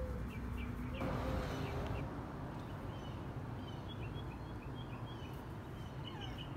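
Small birds chirping in short repeated calls over a steady low outdoor rumble.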